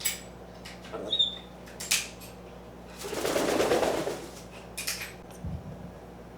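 Metal Allen keys clicking and clinking a few times as an African grey parrot handles them. About three seconds in comes a rushing noise lasting about a second, the loudest thing here.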